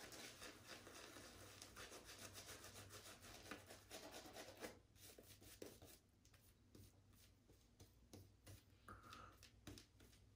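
Shaving brush working soap lather onto the face: faint, rapid strokes of the wet bristles on skin, busier in the first half and quieter and sparser from about halfway.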